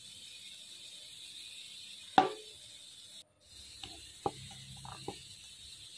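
Hands kneading maida dough in a steel bowl: one sharp clink with a short ring about two seconds in, then several lighter clicks and knocks over a steady hiss. The sound cuts out for a moment a little after three seconds.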